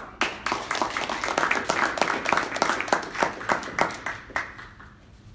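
Audience applauding, with individual claps easy to pick out, fading out after about four and a half seconds.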